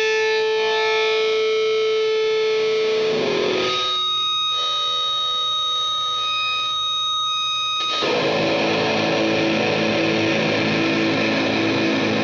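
Electric guitar through a Death By Audio Fuzz War fuzz pedal, playing an aggressive fuzz tone. Long sustained notes ring out, then a thick chord is struck about 8 s in and held.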